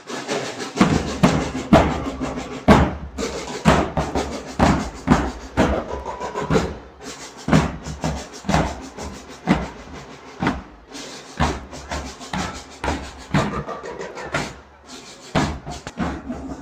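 A drum band playing a steady beat of loud drum strokes, with heavy bass-drum hits about once or twice a second and lighter hits between.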